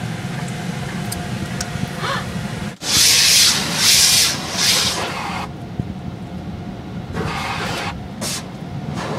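Steady low rumble of a running engine, with loud hissing bursts about three seconds in (three surges) and again near seven seconds.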